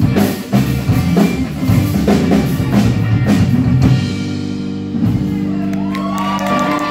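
Live rock band of drums, electric guitars and bass playing the final bars of a song: drum hits until about four seconds in, then a last chord held and left ringing.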